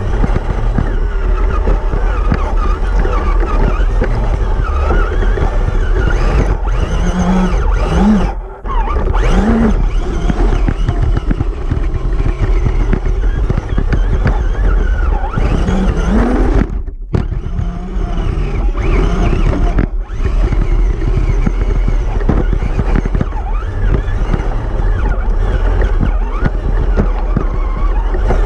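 Onboard sound of an Element RC Gatekeeper electric trail truck driving over rocks and gravel: a steady mechanical clatter and rumble, with the motor whine rising and falling as the throttle changes and dropping out briefly twice.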